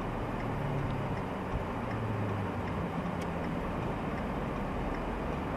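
Car cabin noise at low speed: the engine and tyres hum steadily while a turn signal ticks faintly and regularly.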